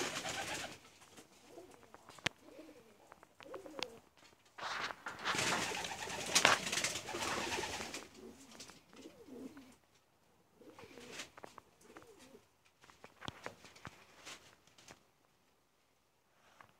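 Doves cooing low at intervals, between bursts of rustling and scattered sharp clicks; the loudest rustling comes right at the start and about five to eight seconds in.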